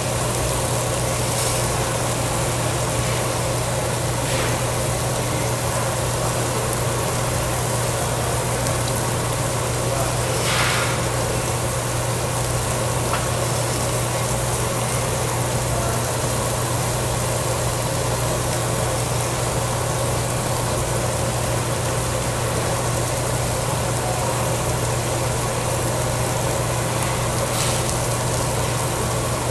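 Steady hum and hiss of a tabletop barbecue grill's overhead exhaust hood fan running, with a few brief light clatters, the clearest about ten seconds in.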